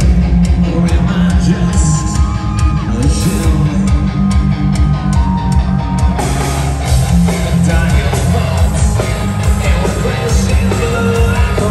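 Live rock band playing loud: electric guitars, a drum kit and a singer, heard from within the crowd.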